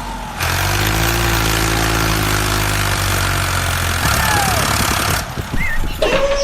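A vehicle engine running with a steady hum, giving way about four seconds in to a rapid rattling clatter. A siren tone starts just before the end.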